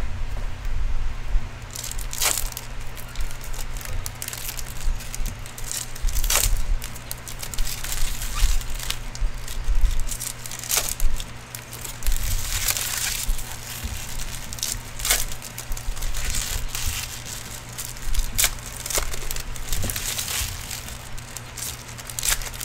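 Trading-card pack wrappers crinkling and crackling as packs are torn open, with the cards being handled and sorted, giving scattered sharp crackles over a steady low hum.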